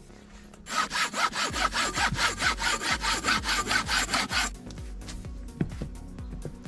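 Hand saw cutting through wood in quick, even strokes, about five a second, for nearly four seconds before it stops.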